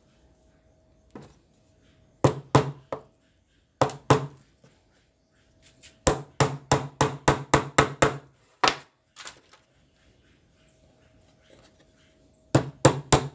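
Hand hammer tapping small nails through a thin wooden edging strip into the edge of a plywood board. The taps come in groups: a few single taps, then a quick run of about eight near the middle, a couple more, and another quick run near the end.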